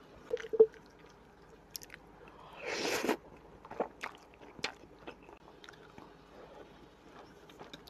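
Close-up eating sounds of a person chewing noodle soup and bread: wet chewing and lip smacks, loudest about half a second in, with a hissing slurp of noodles about three seconds in.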